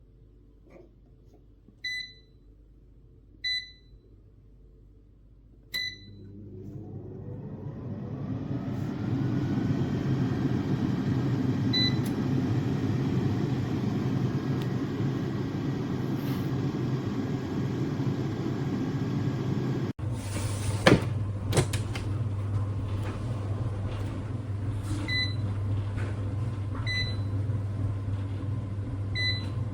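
Cecotec Cecofry Dual 9000 air fryer: its touch panel beeps three times, then the fan starts, a whine rising in pitch for a few seconds before settling into a steady hum. Later two sharp clicks and three more single beeps sound over the running fan.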